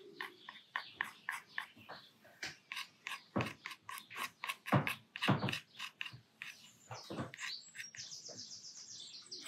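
Steel dip-pen nib scratching quick, irregular short strokes on watercolour paper as it flicks in scruffy ink fur lines.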